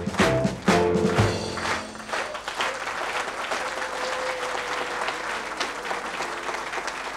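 Lively music with sharply accented beats ends about two seconds in, and an audience's applause carries on steadily after it.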